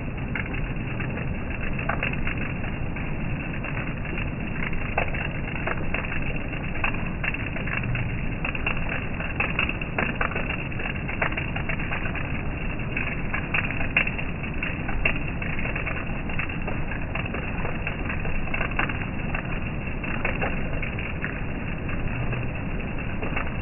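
Steady rain falling, an even hiss with many small sharp drop impacts ticking through it.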